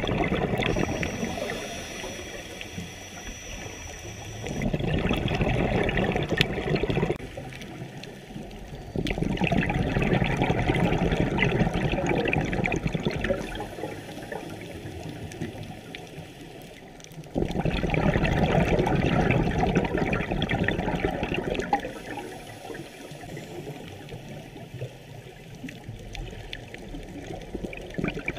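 Scuba diver's exhaled breath bubbling out of the regulator underwater, in bursts of a few seconds about four times, with quieter breathing between.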